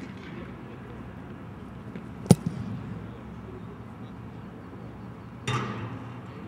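A single sharp thump of a kicker's foot striking a football off a kicking tee on a field goal attempt, about two seconds in. A shorter, softer noisy sound follows about three seconds later.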